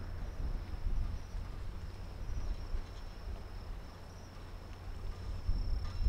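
Crickets trilling steadily at a high pitch, over a louder, uneven low rumble.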